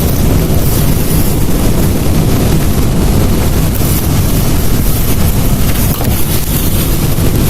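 Heavy rain pouring in a windstorm, with the wind buffeting the microphone: a loud, steady rushing roar.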